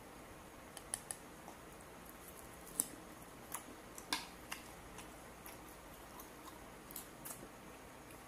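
Close-miked chewing of grilled barbecue skewer meat: irregular sharp mouth clicks, about a dozen, the loudest about three and four seconds in.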